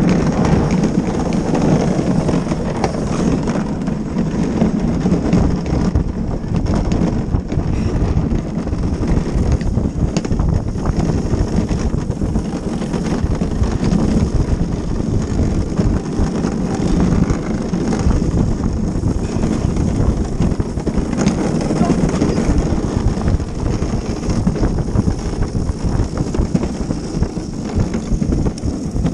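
Luge cart's wheels rolling fast over an asphalt track, a steady loud noise, with wind buffeting the microphone.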